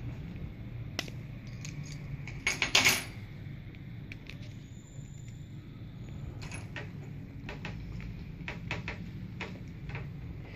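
Hard polycarbonate bag-hanger keychain being handled, its hook pulled out of the disc: sharp plastic clicks and light clatter, with a brief loud rattle about two and a half seconds in and a run of separate clicks later on.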